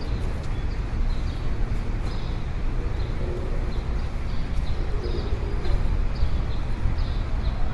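City street ambience: a steady low rumble of traffic, with short high chirps repeating every half second or so over it.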